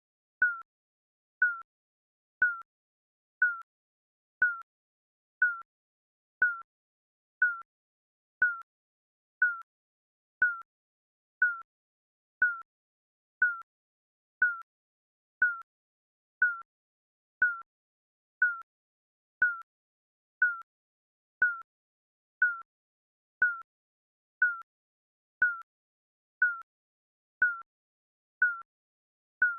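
Digital countdown timer beep sounding once every second, each a short high tone that dips slightly in pitch as it fades, in a steady rhythm marking the seconds.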